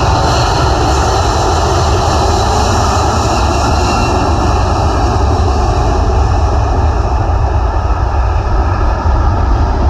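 Jet engines of a Hainan Airlines Airbus A330 airliner running as it taxis, a loud steady rumble with a faint whine above it.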